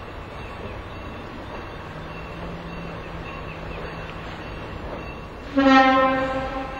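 Train running with a steady rumble, then the train's horn sounds one blast about five and a half seconds in. The blast is a single pitch lasting just over a second and trails off.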